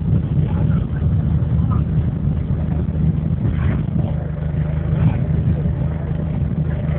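A motor engine running steadily at a constant speed: a continuous low drone.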